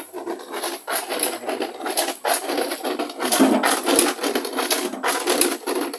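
Dense, uneven scraping and clattering of hard objects being handled and worked, with two sharper knocks in the second half.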